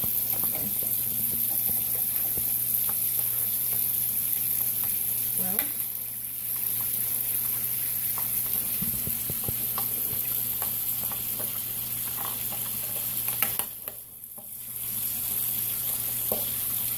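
Small plastic clicks and scrapes as the screw caps and seal rings are worked off cartons of chicken broth, over a steady hiss and a low hum.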